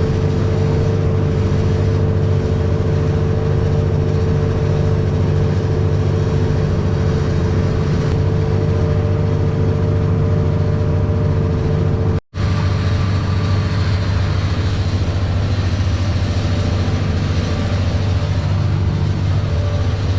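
Boat engine running steadily at cruising speed, a constant even hum with no change in pitch. It cuts out for an instant about twelve seconds in.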